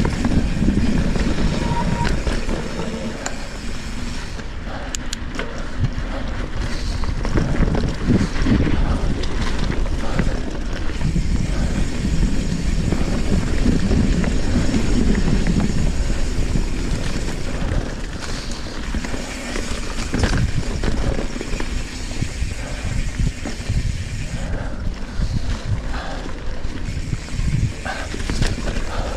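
Trek Fuel EX 7 full-suspension mountain bike ridden over a wet, muddy trail: steady rolling rumble from the tyres with frequent short knocks and rattles over bumps and roots. The rear hub's freehub buzzes loudly when the bike coasts.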